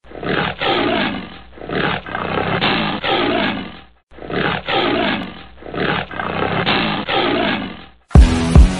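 A big cat roaring several times, the same four-second stretch of roars heard twice with a short break between. A hip-hop beat with heavy bass kicks comes in near the end.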